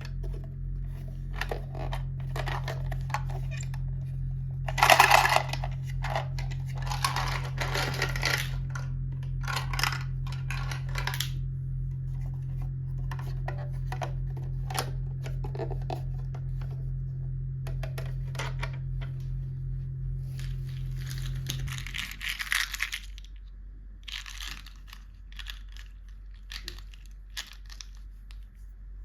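Packaging being torn open and crinkled by hand in irregular rustles and crackles, the loudest about five seconds in. A steady low hum underneath stops about three-quarters of the way through.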